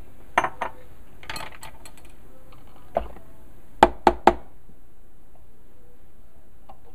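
Knocks and clunks of a food processor's plastic bowl, lid and blade assembly being handled and taken apart, with a spatula scraping. There are a few light knocks and a scrape in the first two seconds, then three sharp knocks close together about four seconds in as the lid and blade come off the bowl.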